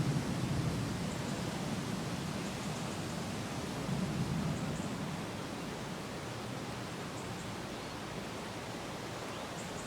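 Thunderstorm ambience: a steady, even rush of wind and rain, easing slightly in the second half.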